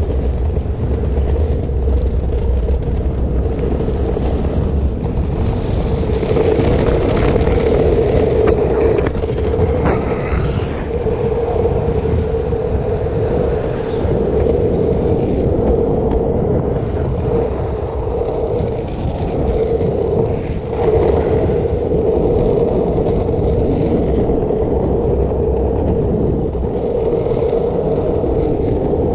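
Skateboard's 64 mm urethane wheels rolling fast down an asphalt street: a steady rumble with a constant hum running under it.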